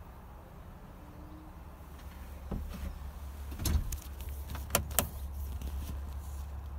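Several sharp knocks and clicks of handling in a truck cab, the loudest a little under four seconds in and twice around five seconds, over a steady low hum.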